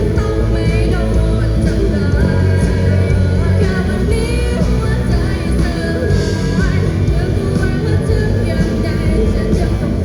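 Live band playing a loud rock song with a singer over steady bass and drums.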